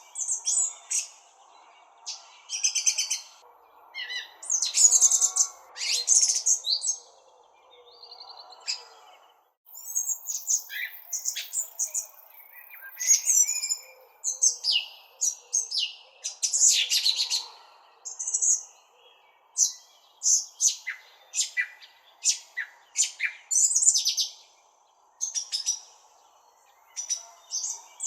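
Songbirds chirping: a busy run of short, high chirps and trills, one after another with brief pauses between calls.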